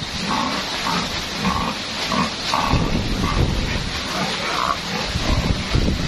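Domestic pig grunting over and over, a short grunt roughly every half second, with strong wind buffeting the microphone.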